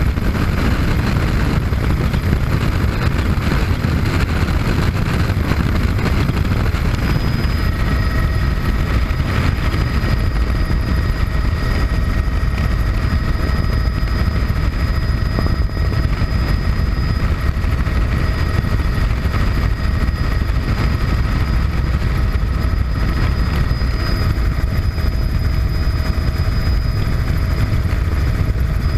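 Bell 206B3 JetRanger helicopter in cruise flight, heard from inside the cabin: a steady, loud low rumble of the main rotor and turbine. A few faint, steady high whining tones come through more clearly about a quarter of the way in.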